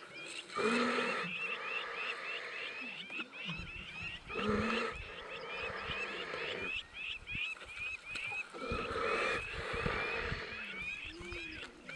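Lions growling as they feed on a downed Cape buffalo, in three bouts: near the start, about four and a half seconds in, and about nine seconds in. Under them runs a steady chorus of rapid high chirps, several a second.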